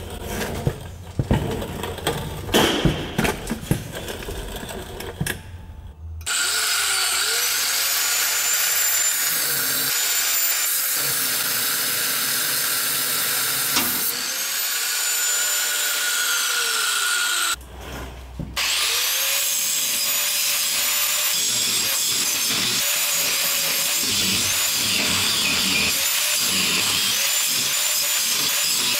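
Angle grinder fitted with an oversized 6-inch disc grinding the steel head off a leaf-spring hanger bolt, so the bolt can be punched out to free the spring. After a few seconds of knocking and scraping it starts with a rising whine about six seconds in and grinds steadily. Around two-thirds through it stops for about a second, then starts again.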